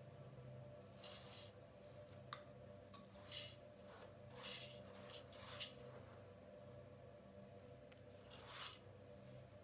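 Rice being handled by hand in a metal pot: about five soft, brief swishes and a sharper click, over a faint steady hum.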